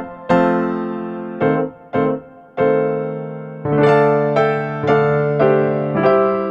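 Background music: a slow electric piano melody, single struck notes each ringing out and fading before the next.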